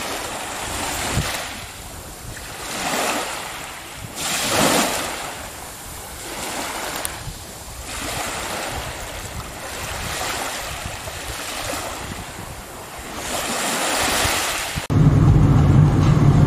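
Surf washing against a rocky shore, its hiss swelling and fading in irregular surges every couple of seconds. About fifteen seconds in it cuts abruptly to the steady engine and road rumble heard inside a moving vehicle.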